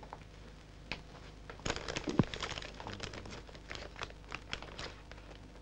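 Paper crinkling and rustling as it is handled. It comes as a cluster of irregular crackles, starting about a second and a half in and thinning out near the end.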